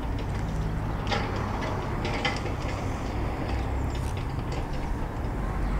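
Wind buffeting the microphone, a steady low rumble, with a few faint sharp clicks, the clearest about one and two seconds in.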